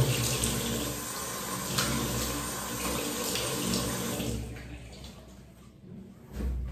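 Tap water running into a bathroom sink as the face is rinsed after a shave, fading out about four seconds in; a soft low bump near the end.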